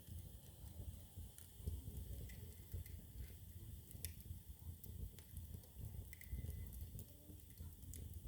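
Wood fire burning in a fireplace: a faint low flame rumble with scattered small crackles and pops throughout.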